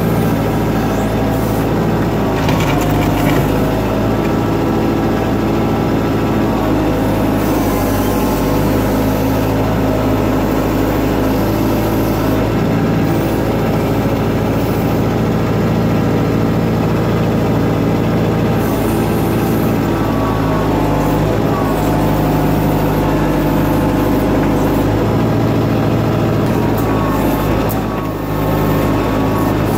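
Backhoe's diesel engine running steadily while it digs, with short squeals and knocks from the working arm.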